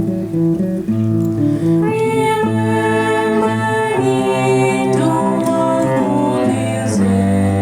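A quartet playing music, with held, overlapping notes that change about once a second.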